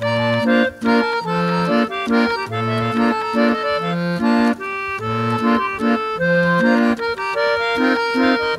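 Accordion playing an instrumental passage without singing, the closing bars of the song: a low bass note about every second and a quarter, with short chords and a melody above it.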